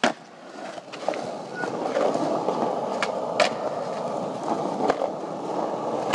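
Skateboard wheels rolling over rough, cracked concrete: a steady rumble that grows louder about a second in, with a few sharp clicks.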